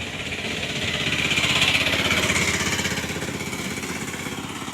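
A small engine running with a rapid, even beat. It grows louder to a peak about a second and a half in, then fades.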